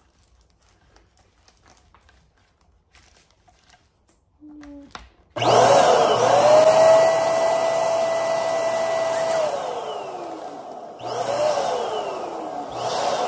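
Electric balloon pump inflating a foil balloon. After about five seconds of near quiet, the motor starts about five seconds in and rises in pitch. It holds a steady tone for about four seconds, then sinks lower as the balloon fills. It is switched on again for two shorter bursts near the end.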